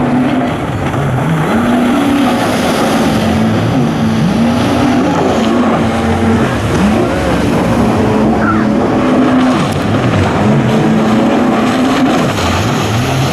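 Racing jet ski engines revving up and easing off again and again, their pitch rising and falling as they work through slalom turns.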